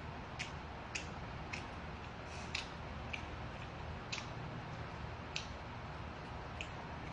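Eating sounds close to the microphone: short, sharp clicks every half second to a second or so, from chewing and chopsticks working noodles on a glass plate, over a low steady hum.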